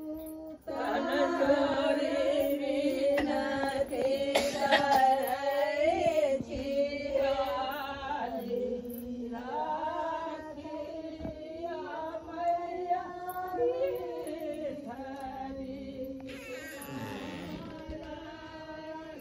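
Female singing in an Indian style, with long held, wavering notes, somewhat quieter in the second half.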